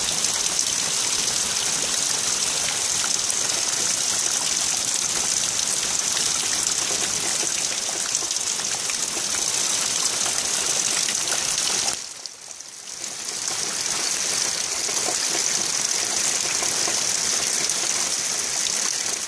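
Heavy rain falling steadily, an even hiss. It drops away suddenly about twelve seconds in and comes back over a second or two.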